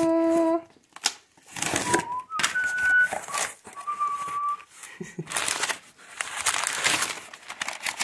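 Cardboard box and crumpled brown packing paper rustling and crinkling in bursts as the box is opened and unpacked by hand. A few short whistled notes come between about two and four and a half seconds in, and a brief sung "da" is heard at the very start.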